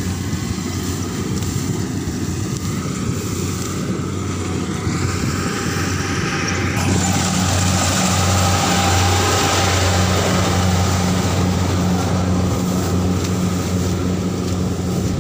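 Rice combine harvester running close by, a steady low engine hum with a rushing mechanical noise over it that gets louder about seven seconds in.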